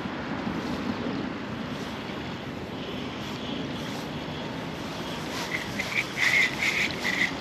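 Steady rush of flowing river water and wind on the microphone. Near the end comes a quick run of short, high bird calls, the loudest sound here.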